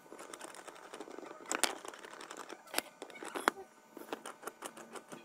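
Metal clinks and knocks of a rusty steel C clamp being handled and set against a bolted metal fixture, with small rattles between a few sharper clanks, the loudest about a second and a half in and about three and a half seconds in.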